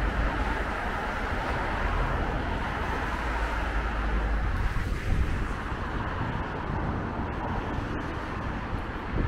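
Road traffic: a steady wash of car tyre and engine noise with a low rumble, and a vehicle going by about halfway through.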